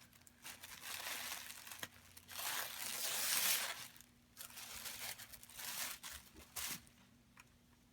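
Packaging being unwrapped and handled by hand: crinkling and tearing in several bursts, the loudest about two and a half to three and a half seconds in.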